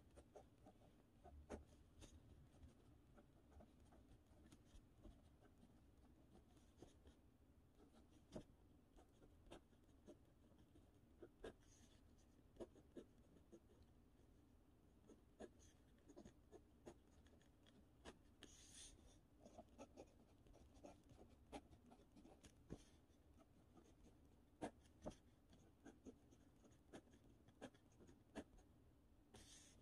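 Faint sound of a pen writing by hand on notebook paper. Irregular light ticks and scratches of the pen strokes, with a brief longer scrape about two-thirds of the way through.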